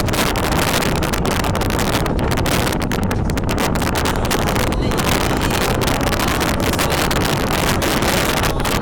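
Strong wind blowing across the microphone: a loud, steady rush with constant crackling buffets.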